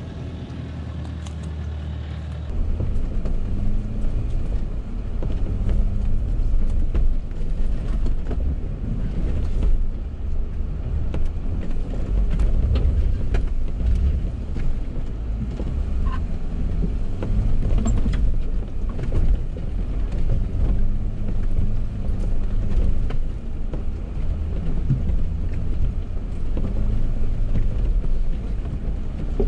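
A four-wheel drive's engine labours at low speed up a steep rocky track, a loud, rough rumble with scattered knocks and clicks from the tyres and suspension working over the rocks. It steps up from a quieter hum about two and a half seconds in.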